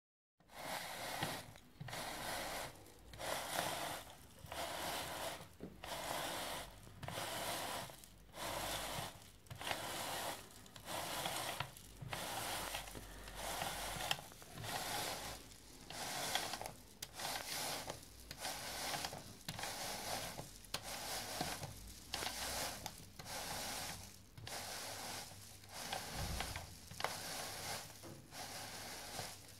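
Hand-cranked Olds Elevator screw conveyor lifting oat flakes up its clear tube: a dry rustling and scraping of flakes against the screw and tube, with a light mechanical rubbing, swelling and fading about once a second.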